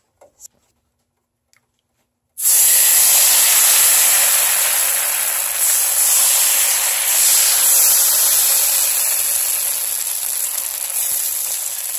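Thin rice-and-coconut neer dosa batter sizzling on a hot oiled non-stick pan. The sizzle starts suddenly and loud about two seconds in as the batter hits the pan, then slowly dies down. An instant sizzle like this shows the pan is hot enough.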